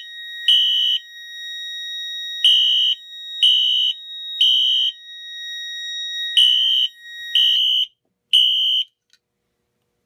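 Fire alarm horn sounding the temporal code-3 evacuation pattern: three half-second, high-pitched blasts a second apart, then a pause, repeating. The fire panel is in alarm after a heat detector was tripped with a test magnet. Under the blasts a thin steady tone runs and stops about three quarters of the way through.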